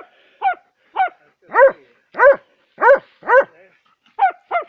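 Hunting dog barking repeatedly at a badger: about nine short, sharp barks, roughly two a second, each dropping in pitch at its end.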